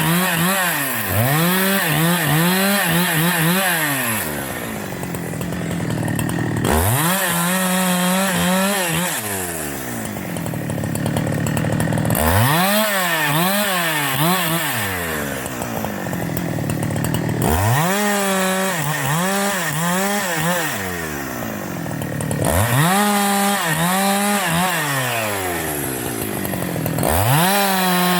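Husqvarna 372 XP two-stroke chainsaw being run up to high revs and held for a few seconds, then dropping back, about six times over.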